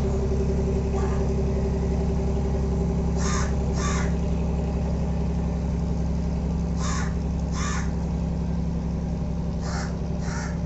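A ferry boat's engine running with a steady low hum that eases slightly toward the end. Crows caw over it, three times in quick pairs.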